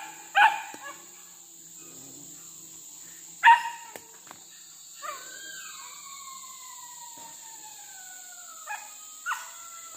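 Village dogs barking in four short, sharp barks, the loudest about three and a half seconds in, with a long howl sliding down in pitch for about three seconds in between. A steady high insect drone runs underneath.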